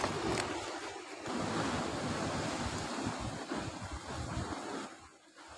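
Sea waves surging against a rocky shore, with wind buffeting the microphone. The rush eases off near the end.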